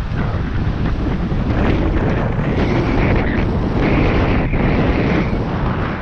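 Wind buffeting a bike-mounted GoPro's microphone while riding at race speed, a steady heavy rumble, with a higher hiss over it from about two to five seconds in.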